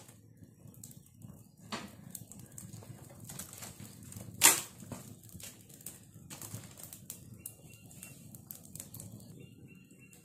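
Firewood crackling as it burns in a wood-fired hearth, with irregular small clicks over a low rumble. Wood is being handled and pushed into the fire, with one sharp knock about halfway through.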